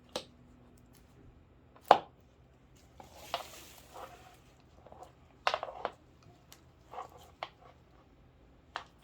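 Tools and metal parts being handled at a workbench: irregular sharp clicks and knocks, the loudest about two seconds in, with a short rustle a little after three seconds.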